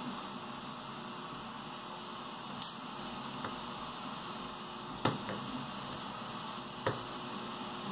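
Screwdriver turning a small machine screw into a plastic part, heard as a few sharp clicks and taps of metal on plastic, the loudest about five seconds in and another near seven, over a steady background hiss and hum.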